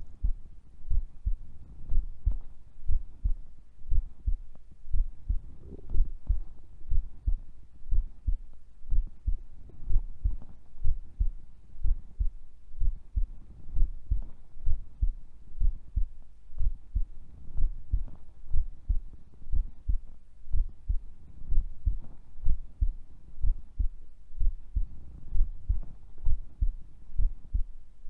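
A sleeping woman's heartbeat heard close up through the chest, a steady low lub-dub about once a second. Faint irregular stomach gurgles sound now and then beneath it.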